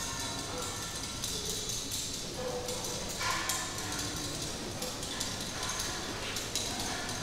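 Experimental sound-art performance of vibrating objects: a dense, irregular scatter of small clicks, taps and rattles, with brief faint ringing tones now and then.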